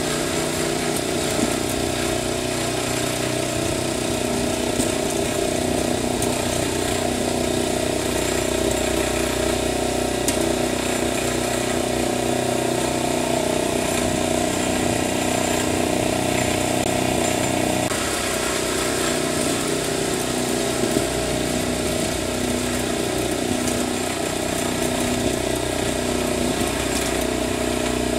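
An engine or motor running steadily at an even speed, a constant hum with fixed tones and no change in pitch.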